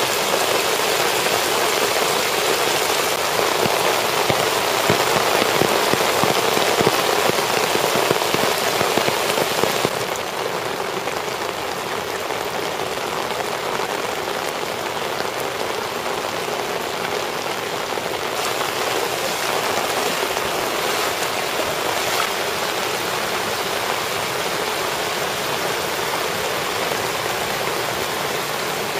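Heavy rain pouring down onto flooded streets, a steady hiss of the downpour. It drops a little in level about ten seconds in.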